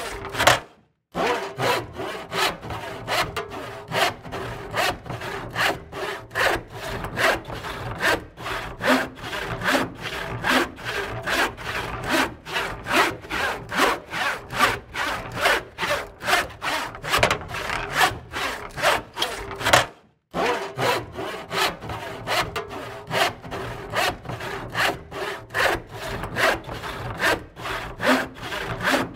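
Hand saw cutting through wood in steady back-and-forth strokes, about two to three a second, each a rasping scrape. It stops briefly about a second in and again about twenty seconds in.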